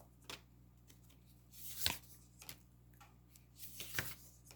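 Tarot cards being handled: a few soft rustles and flicks of cards, with a sharper snap about four seconds in.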